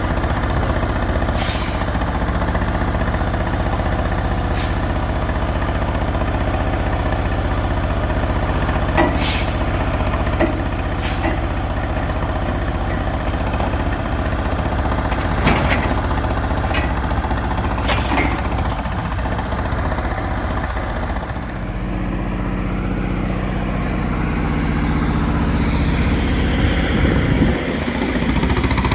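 Detroit Diesel 6V92TA two-stroke V6 diesel in a logging truck running steadily, with about five short hisses of air from the truck's air system. About three quarters of the way through the higher hiss fades out, leaving the steady low engine note.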